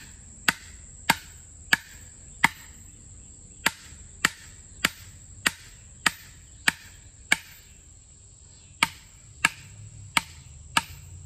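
Steel splitting wedge being driven into a red oak round with a 3-pound mini sledge: about fifteen sharp metallic pings, nearly two a second, with two short pauses. The wedge is being started in the log before the heavier sledge takes over.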